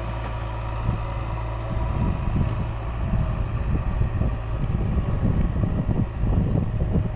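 JCB 3DX backhoe loader's diesel engine running steadily. From about two seconds in it is joined by louder, irregular low rumbling and knocking.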